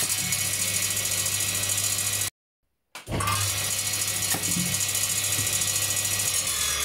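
Table-mounted circular saw running at speed with a steady low hum and high hiss as red onions are dropped onto the spinning blade and cut apart. The sound breaks off for about half a second a little after two seconds in, then carries on.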